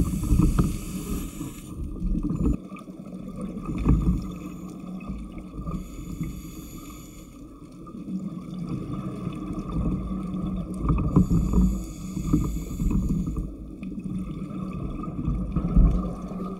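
Underwater recording of a diver propulsion scooter's motor running with a steady hum. Over it, scuba exhaust bubbles come in several hissing bursts a few seconds apart.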